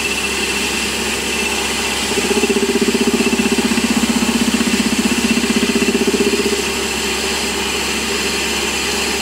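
Warco metal lathe running with a steady whine while a finishing cut is taken on a metal pulley. For a few seconds in the middle, a fast rhythmic knocking comes in, once per turn of the work, as the tool passes over an old bolt hole in the piece: an interrupted cut.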